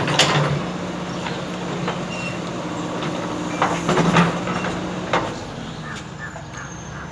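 JCB backhoe loader's diesel engine running steadily, with a few sharp knocks near the start, about four seconds in and about five seconds in. After about five seconds the engine note drops lower and quieter.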